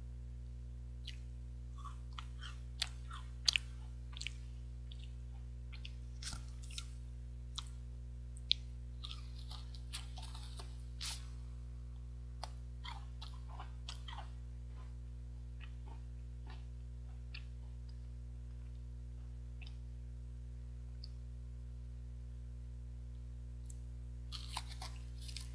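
A 21-grain chocolate cereal bar being bitten and chewed, with a busy run of sharp crunches through the first half, sparser chewing after, and another bite near the end. A steady low hum lies underneath.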